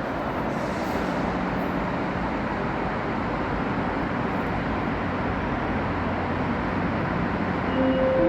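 A train moving through a station, heard as a steady rushing rumble. Near the end a held tone joins in.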